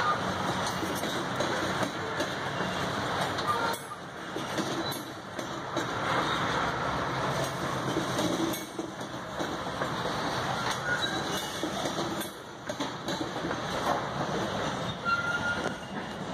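Loaded grain-train covered hopper cars rolling past: a steady rumble and clatter of steel wheels on rail, with a short high squeal near the end.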